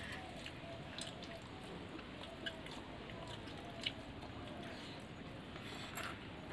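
Faint sounds of eating by hand: fingers squishing and mixing rice in steel bowls, chewing, and a few soft clicks of fingers or food against the bowls.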